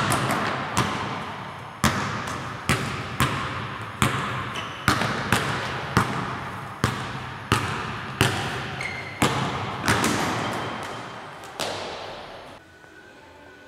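Basketball dribbled on a hardwood gym floor, the bounces coming about once a second at an uneven pace, each one echoing around the gym. The bouncing stops near the end.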